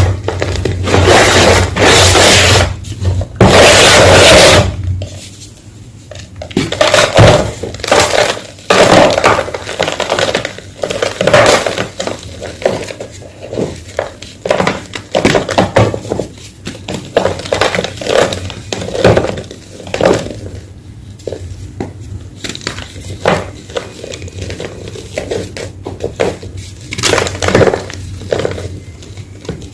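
Homemade gym chalk blocks being crushed, a run of dry, irregular crunches and cracks, dense and loud for the first few seconds, then separate crunches every second or so.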